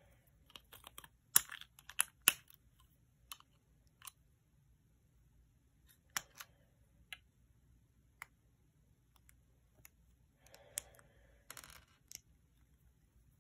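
Plastic LEGO bricks clicking and clattering as they are handled and pressed together, with several sharp clicks in the first couple of seconds and sparser ones after. A brief scraping rustle comes near the end.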